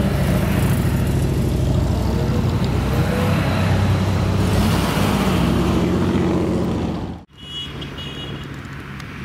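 Motorcycle and car engines passing close by, with some rises in pitch as they pull away. About seven seconds in the sound cuts off abruptly and gives way to a fainter, distant engine with wind noise.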